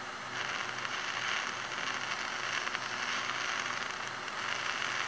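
Dental suction tip hissing steadily as it draws liquid out of a tooth's opened access cavity, growing a little louder a moment after the start.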